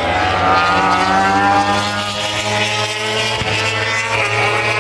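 Several MotoGP race motorcycle engines running at high revs as the bikes pass, their overlapping notes climbing in pitch over the first second or so, then easing off a little.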